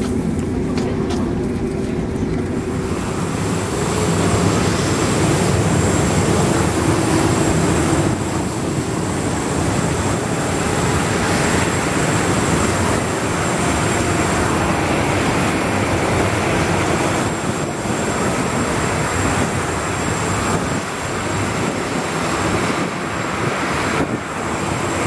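Steady, loud rushing noise of aircraft on an airport apron beside a parked Boeing 737-800, with a thin high whine running through it.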